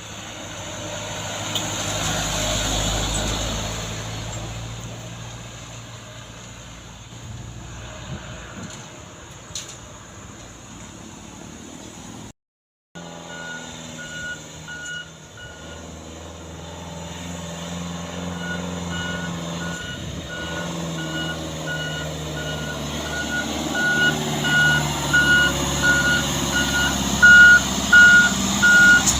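Diesel truck engine running, then a truck's alarm beeper beeping at one steady pitch about twice a second over the engine, growing louder toward the end.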